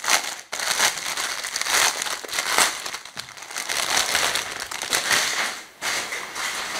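Crinkly packaging being rustled and crumpled by hand in a run of irregular crackles, as a newly delivered garment is unwrapped.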